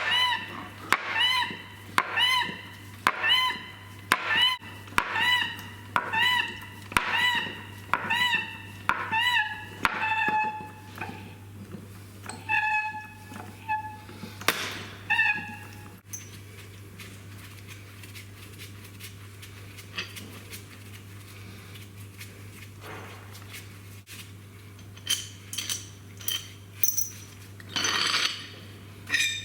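Hammer blows ringing on steel while a Class 25 bogie locating pin is driven out: about one ringing strike a second at first, then slower, lower-pitched blows until they stop about halfway through. A few light metal clinks follow near the end, over a steady low hum.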